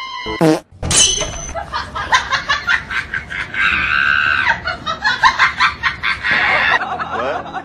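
A brief falling tone near the start, then a shrill, rapid cackling laugh that breaks into a sustained scream in the middle. It is a laughing-and-screaming sound effect dubbed onto a cat's wide-open mouth.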